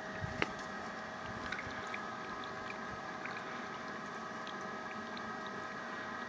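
A steady mechanical hum with hiss, holding several fixed tones, with a few faint scattered ticks.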